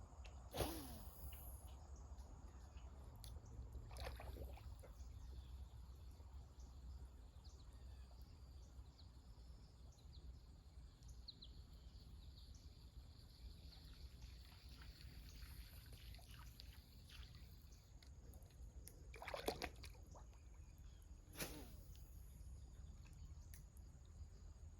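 Near silence: quiet outdoor ambience with a steady low rumble, broken four times by a brief sharp sound, about half a second in, at four seconds, and twice near the end.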